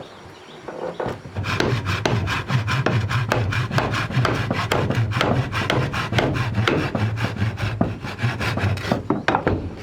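A hand tool working wood in rapid, rhythmic back-and-forth strokes, like sawing or rasping, starting about a second in.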